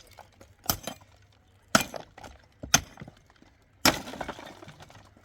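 Four sharp strikes about a second apart, typical of hand-tool work during building.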